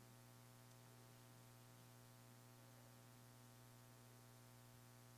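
Near silence: room tone with a steady low hum and a faint hiss.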